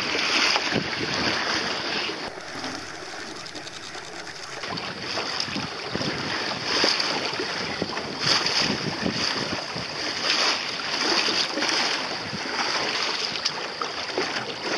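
Wind buffeting the microphone over water splashing along a sailing boat's hull, swelling and easing irregularly, a little quieter a few seconds in.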